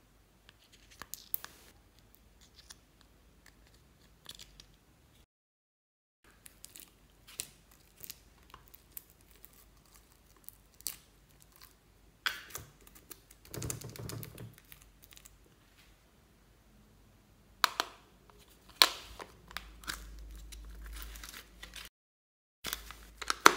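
Small handling sounds of slime play: a plastic spoon scraping and tapping in a small plastic makeup compact and in the slime, and sharp clicks of plastic cases being handled, the loudest ones near the end.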